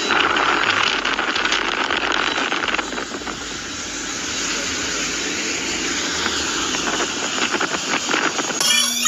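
Private jet's engine and air noise, a steady hiss that dips slightly about three seconds in.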